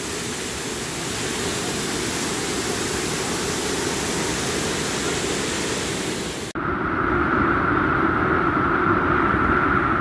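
Steady rushing of a waterfall pouring into a churning pool. About six and a half seconds in the sound cuts abruptly to a duller rush of falling water close by, with less hiss.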